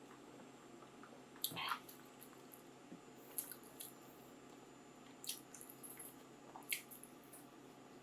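Close-miked mouth sounds of chewing soft food: a few scattered wet, squishy smacks and clicks, the loudest about a second and a half in.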